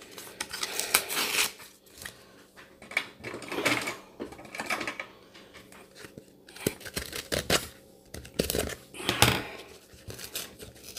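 A paper stencil packet being torn open and handled: irregular rustling and ripping of the packaging, in short spells with brief pauses.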